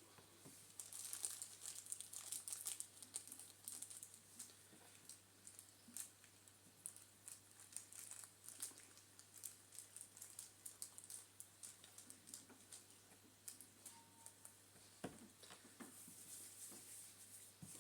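Faint crinkling with many scattered small clicks and taps from hands handling Play-Doh and its crafting bits, over a steady low hum.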